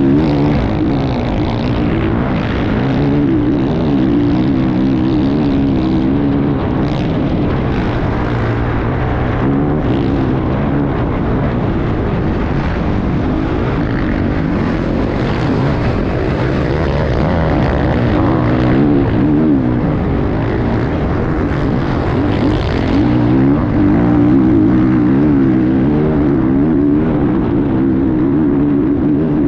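Racing enduro motorcycle engine at hard throttle, heard close up from an onboard camera, its revs rising and falling continually as the rider accelerates and backs off.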